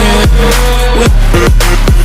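Background electronic music with heavy bass and a steady kick-drum beat, about three hits a second, and no singing.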